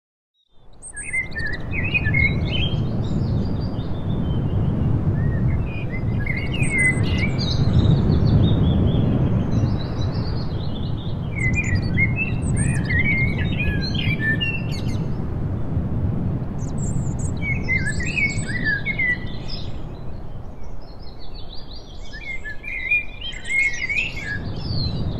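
Woodland songbirds singing in clusters of quick chirping phrases every few seconds, over a steady low rumbling noise. The sound comes in about half a second in, out of silence.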